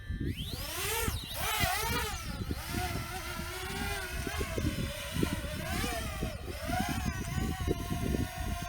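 Quadcopter camera drone's propellers whining, the pitch swooping up and down sharply as it climbs and manoeuvres, then settling to a steady hover tone near the end. Strong wind buffets the microphone throughout.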